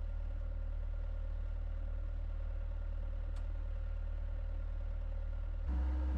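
Skid steer engine running steadily at a low, even speed. About half a second before the end it gets louder and a higher steady note joins in.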